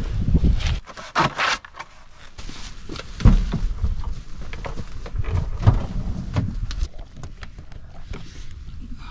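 Footsteps crunching through dry leaves, then scattered knocks, clunks and rustling of gear being handled at the back of a vehicle, with a louder thump about three seconds in.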